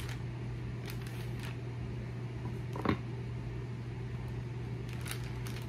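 Steady low hum, with candied strawberries being handled and set into a plastic snack cup: a few faint clicks and one short knock about three seconds in.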